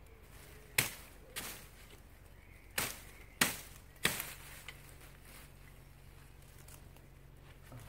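Folding military shovel multi-tool chopping into a sapling's wood: five sharp strikes in the first four seconds or so, then a couple of lighter knocks.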